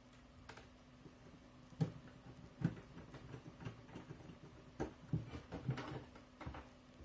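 Irregular light clicks and knocks of a small screwdriver and screws working on the display frame of an HP ProBook 6570b laptop, with the screen lid being handled on a wooden desk. The knocks come a few at a time, bunched more closely in the second half.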